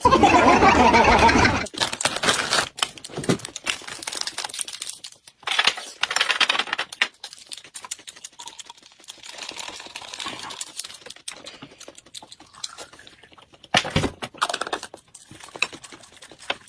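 A loud, wavering, voice-like sound for under two seconds, then scattered clicking, crinkling and clattering of tableware and food handling while eating, with a sharper knock about fourteen seconds in.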